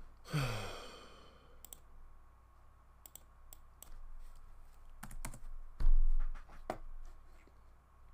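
Computer keyboard typing in scattered keystrokes and clicks. A short falling vocal sound comes just after the start, and a low thump about six seconds in.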